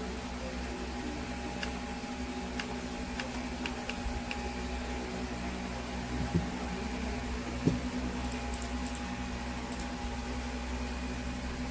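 Steady machine hum, with a scattering of light computer-mouse clicks and two louder knocks about six and a half and seven and a half seconds in.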